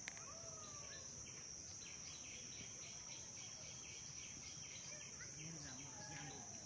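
Faint outdoor ambience of insects: a steady high-pitched drone with a regular chirping pulse about four times a second. A few faint sliding bird calls are heard, about a second in and again near the end.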